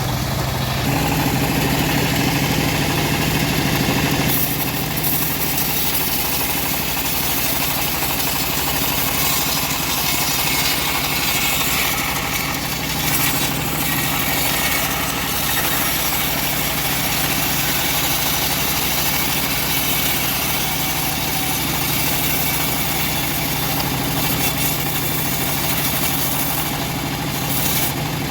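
Engine-driven bandsaw mill running steadily, with a high hiss of the blade cutting through a log from about four seconds in until just before the end.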